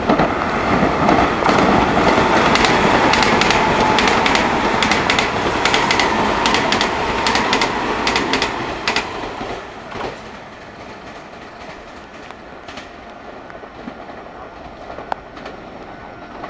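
Meitetsu electric train running close by, its wheels clacking rapidly over the rail joints, then dying away about ten seconds in.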